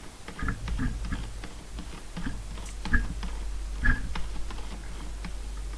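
Scattered light taps and clicks of a stylus on a pen tablet, erasing on a digital whiteboard, over a low steady hum.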